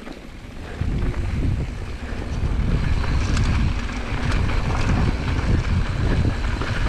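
Wind buffeting an action camera's microphone as a mountain bike rolls fast down a dirt trail, a heavy low rumble that comes up about a second in, with tyres and the bike rattling over dirt and small stones.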